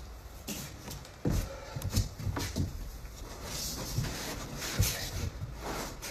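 Handling noise: a few irregular soft knocks and rustling as gear is set in place in a small room.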